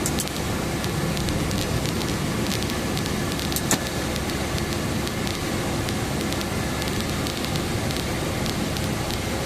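Aftermarket heater fan and the car's blower fan both on full blast, a steady rushing hiss, with scattered light ticks throughout and one sharper click a little under four seconds in.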